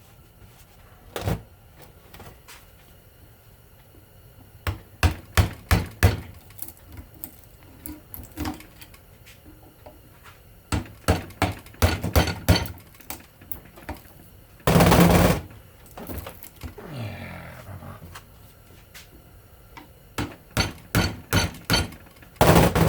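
Clusters of sharp metal knocks and taps as hand tools strike and pry at a ceiling fan motor's stator to work the varnished copper windings loose. There are five quick strikes in a row, and a louder half-second scrape about two-thirds of the way through.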